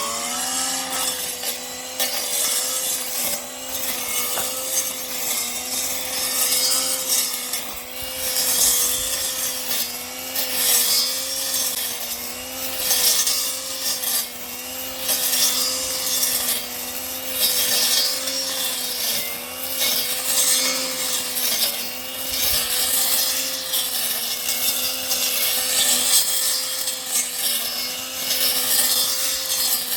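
Parkside 40V cordless multi-tool's brushless motor driving a brush-cutter blade: it spins up to speed at the start, then runs with a steady whine that wavers slightly under load, over a hissing, uneven rush as the blade cuts through weeds and small branches.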